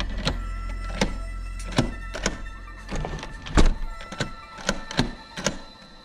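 Background music over a run of about eight or nine irregular sharp clicks and knocks from a deadbolt's thumb turn being worked back and forth.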